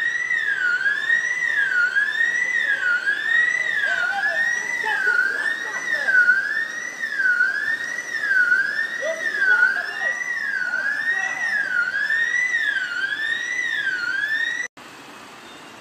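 Emergency vehicle siren sweeping rapidly up and down in pitch, about one and a half cycles a second. It cuts off suddenly near the end, leaving a quieter steady rushing noise.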